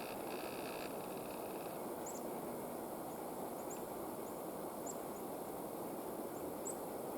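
A vehicle driving steadily along a road, a constant rumble of engine and tyre noise, with a few faint high ticks scattered through it.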